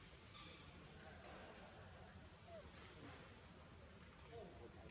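Insects shrilling in a steady, high-pitched drone, with a few faint short chirps.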